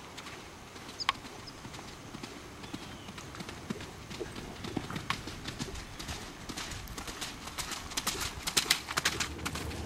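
Hoofbeats of a ridden Welsh pony on arena footing, a string of clip-clop strikes that grow louder and closer together in the second half. A single sharp click sounds about a second in.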